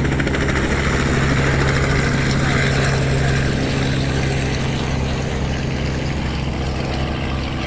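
Helicopter running: a loud, steady engine-and-rotor drone that grows slightly quieter toward the end.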